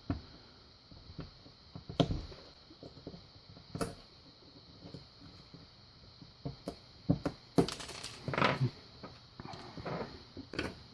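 A flat screwdriver working the C-clip off the back of a Mul-T-Lock cylinder: scattered small metal clicks, taps and scrapes, with a busier cluster of clicks near the end.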